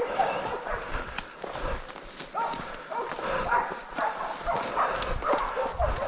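Bailing dogs barking over and over, several barks a second, holding a wild boar at bay. Twigs and brush crack underfoot as the hunters push through the undergrowth.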